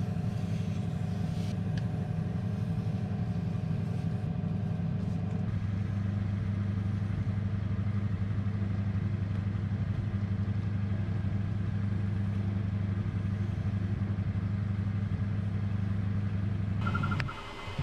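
Small bench metal lathe running at a steady speed, its motor giving an even, low hum. The hum breaks off suddenly near the end.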